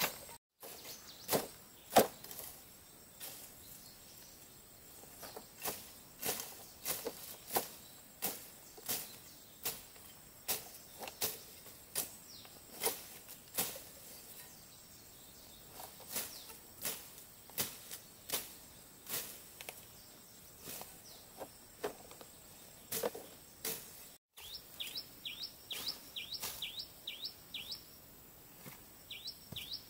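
Irregular sharp clicks or knocks, about one or two a second. Near the end come rapid, repeated high chirps from a bird.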